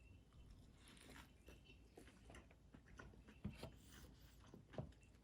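Near silence with faint chewing of a mouthful of fried chicken sandwich, and a couple of soft clicks about three and a half and nearly five seconds in.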